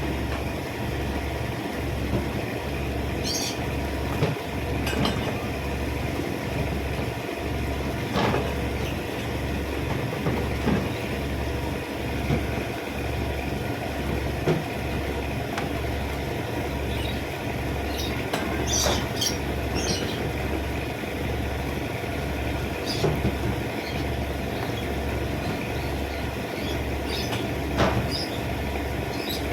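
A machine running steadily with a low, even throb about one and a half times a second, with short high chirps now and then over it.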